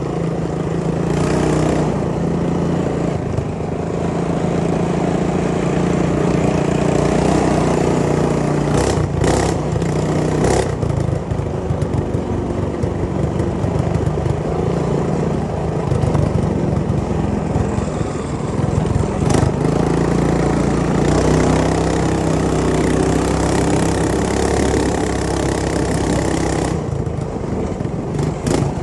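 Megamoto 212 minibike's 212cc single-cylinder four-stroke engine running steadily under throttle on a dirt trail, its pitch rising and falling a little. A few brief sharp noises cut in over the engine.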